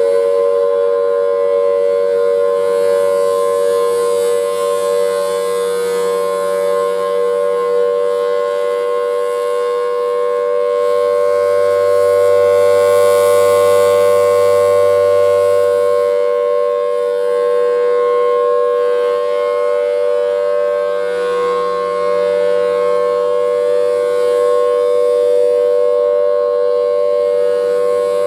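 Federal Signal Thunderbolt 1000AT tornado siren sounding its steady alert signal: a loud, unwavering chord of two close pitches that swells and fades gently in loudness.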